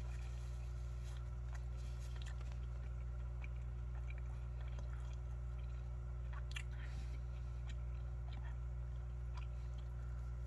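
A person chewing food, with small scattered mouth clicks, over a steady low hum.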